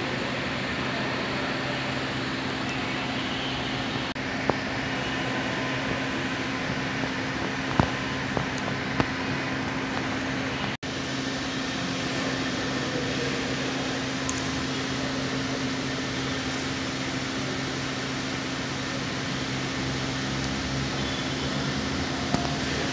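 Steady mechanical hum: a constant low drone over an even hiss, like air-conditioning or ventilation fans running. A few light clicks are heard, and there is a momentary break about eleven seconds in.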